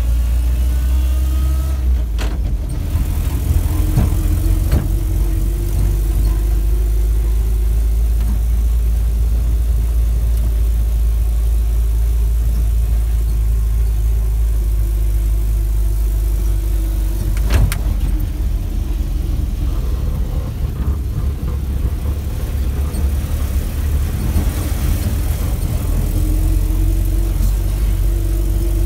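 Land Rover Series II engine running as it drives slowly along a rough dirt track, heard from inside the cab: a steady low drone whose pitch wavers gently with the throttle. A few short knocks stand out, about two seconds in and again near eighteen seconds.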